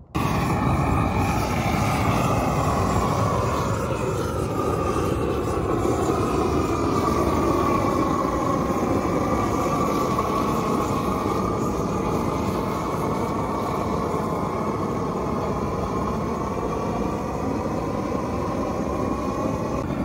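Hose-fed gas torch burning steadily as it chars a hollow log beehive, a continuous rushing flame noise that wavers slowly in pitch.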